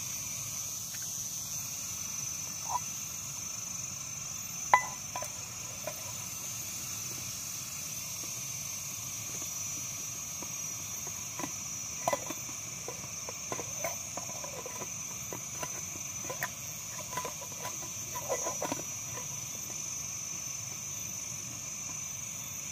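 Steady high-pitched drone of insects, with scattered light clicks and knocks over it, the sharpest about five seconds in.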